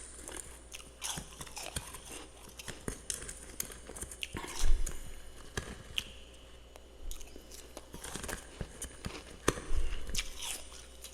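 Close-up biting and chewing of powdery freezer frost: a string of crisp crunches. The loudest bites come a little before halfway and again near the end.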